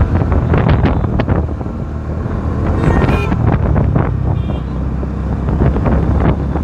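Bajaj Dominar 400's single-cylinder engine running steadily as the motorcycle rides along, with wind rushing over the microphone.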